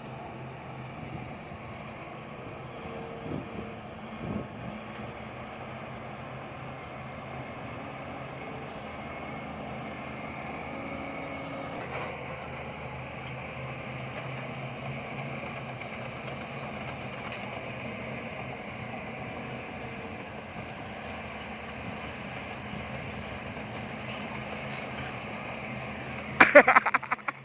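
Bulldozer's diesel engine running steadily with a low, even drone. A brief loud sound cuts in near the end.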